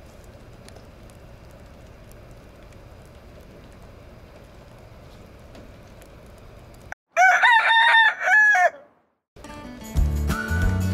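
A rooster crowing once about seven seconds in: a loud call in several rising and falling syllables, cut in abruptly with dead silence on either side. Before it there is only faint steady background noise, and music starts just after and is loud near the end.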